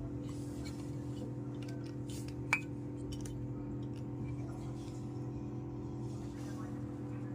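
Miniature toy kitchen pieces being handled: faint small clicks and taps, with one sharper clink about two and a half seconds in, over a steady low hum.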